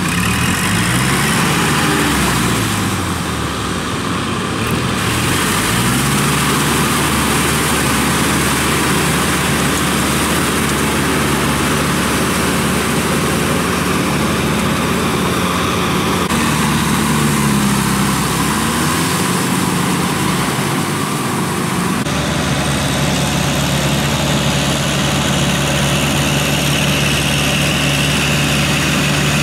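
Kubota tractor's diesel engine running under load as it pulls a rotary tiller through a flooded rice paddy. The engine note dips and recovers a couple of times.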